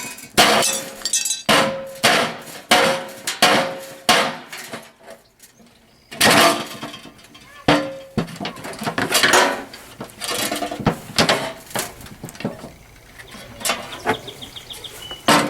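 A metal barbecue being struck again and again with a heavy tool as it is broken down for scrap: a run of sharp metal bangs, several with a short ring. The strikes pause about five seconds in, then resume, with lighter clattering in the second half.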